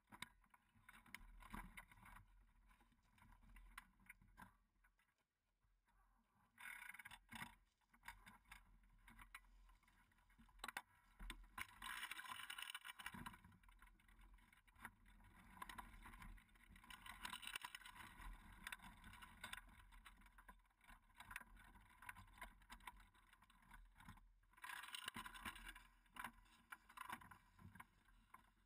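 Near silence: faint, uneven outdoor noise that swells and fades a few times, with no clear single source.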